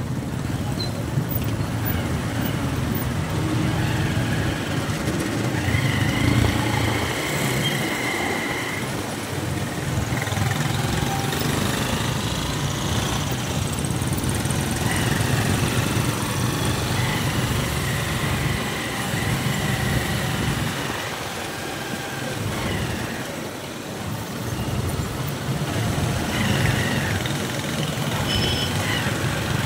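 Busy street traffic: small motorcycle and motorized tricycle engines running, with other vehicles moving slowly around them.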